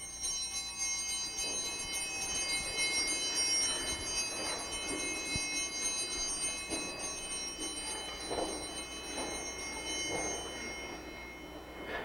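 A bell struck once: its high, many-toned ring holds and slowly fades out over about eleven seconds. Under it come the shuffles and knocks of people kneeling down.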